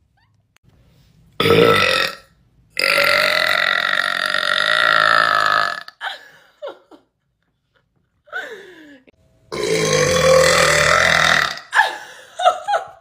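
A woman's deep burps: a short burp, then a long drawn-out one lasting about three seconds, and later another long one of about two seconds, with smaller sounds between them and a few short ones near the end.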